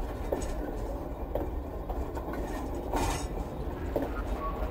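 Passenger train carriages rolling past close by: a steady rumble of wheels on track with a clank now and then.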